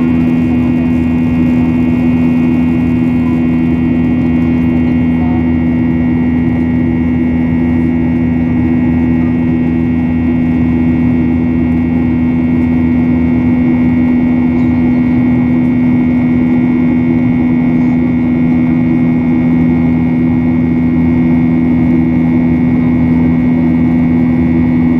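Boeing 737-800's CFM56 turbofan engines running steadily during the climb-out, heard inside the cabin by the wing: a constant loud drone with a strong low hum and a thin high fan whine over rushing air.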